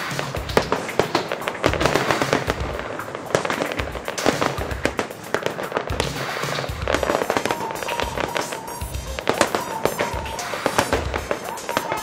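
Aerial fireworks display: shells bursting and crackling in quick, dense succession, one report after another, with music playing underneath.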